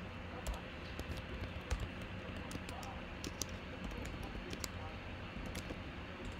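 Computer keyboard typing: irregular clicks of keys pressed in quick runs, over a steady low hum.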